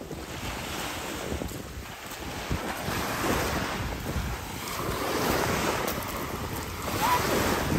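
Small waves washing onto a sandy beach, the surf swelling a couple of times, with wind rumbling on the microphone.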